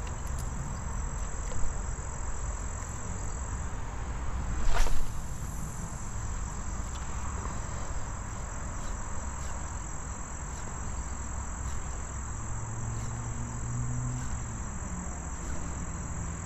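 Insects, crickets among them, giving a steady high-pitched buzzing chirr over a low steady rumble, with one brief louder rush of noise about five seconds in.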